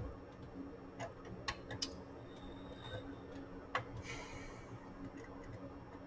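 A few irregular light clicks and taps as a small screwdriver is handled against the metal chassis of an 8-track player, over a faint steady hum.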